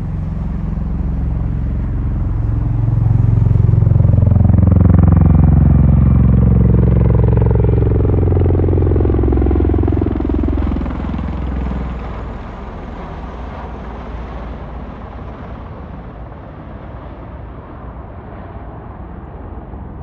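Bell Boeing V-22 Osprey tiltrotor flying low past in helicopter mode, a heavy rotor and engine drone. It grows loudest a few seconds in, falls in pitch as the aircraft passes, then drops away to a quieter rumble as it moves off.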